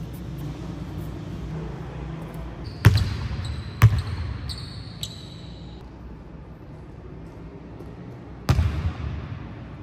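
A basketball bouncing on an indoor court floor, three loud bounces with an echo from the large hall: two about a second apart, then one near the end. Short high squeaks come between the first bounces.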